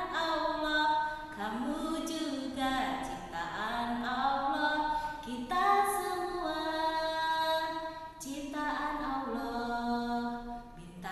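A woman singing a short song without accompaniment, in held notes that step up and down, in phrases with brief breaks between them.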